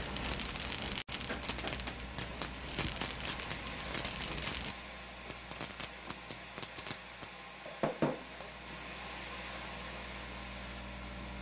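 Television set blowing out in a cloud of smoke: a dense electrical crackle and hiss for about five seconds that cuts off suddenly, followed by a few scattered crackles and a steady low hum.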